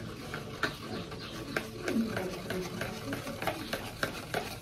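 Hair dye mix being stirred in a small bowl, a run of irregular scraping clicks.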